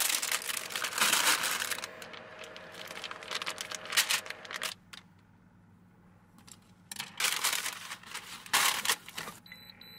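Crinkling and rustling of a plastic food package being handled and opened, in irregular bursts with a quiet pause midway.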